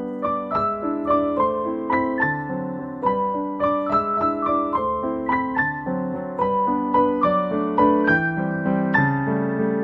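Background piano music: a gentle melody of single notes over chords, plucked out at an even, unhurried pace.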